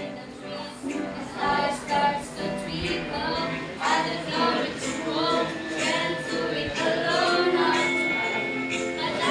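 Music with a woman's singing voice over a steady accompaniment with a regular beat.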